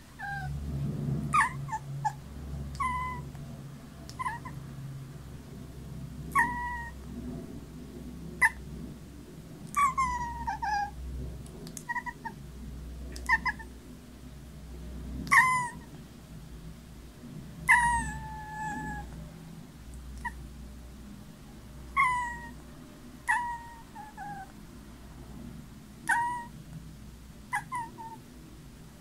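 Young grey tabby kitten meowing over and over: short, high cries that fall in pitch, about one every second or two.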